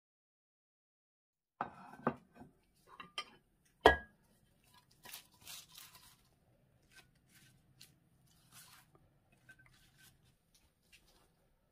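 A ceramic plate set down on a wooden cutting board: a few light clatters, then one sharp knock about four seconds in. After it come the soft rustle and light taps of cut lettuce leaves being laid onto the plate.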